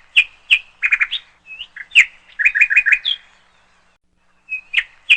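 A bird singing: quick, sharp chirps and short rapid runs of notes, falling silent for about a second and a half before chirping again near the end.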